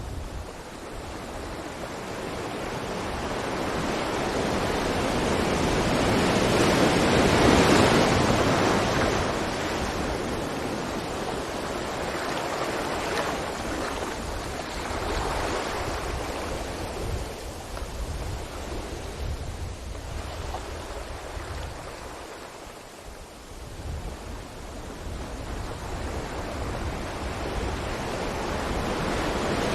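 Ocean waves breaking and washing on a beach, a steady rushing surf that swells to its loudest about seven or eight seconds in, then eases off and builds again toward the end.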